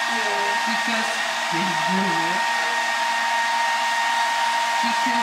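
Handheld hair dryer running continuously: a steady rushing hiss with a constant whine from its motor.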